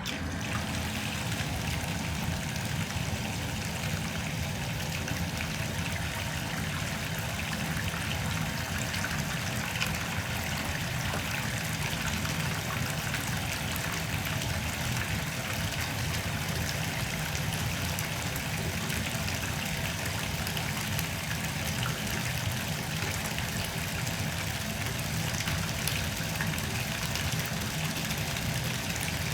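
Water running from a tap into a bathtub as it fills, a steady splashing rush.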